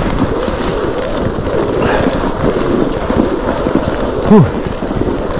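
Fat bike tires rolling over hard, squeaky snow in about −41 °C cold, a continuous crunching squeak, with wind on the microphone. A brief grunt about four seconds in is the loudest sound.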